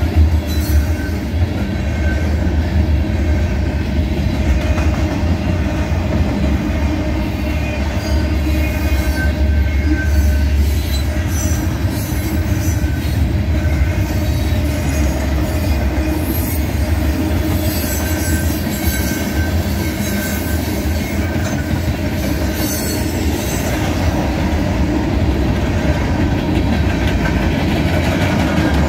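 Freight cars of a heavy mixed freight train rolling past, a loud steady rumble and clatter of wheels on the rails, with faint high wheel squeals in the middle stretch.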